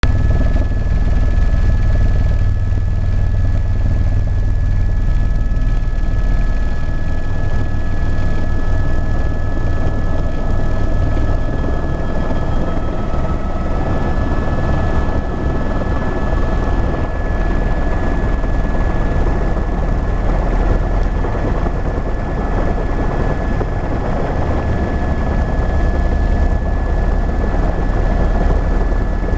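Helicopter engine and rotor noise heard from inside the cabin: a steady deep drone under a steady high whine. A second, slightly lower whine fades out about halfway through.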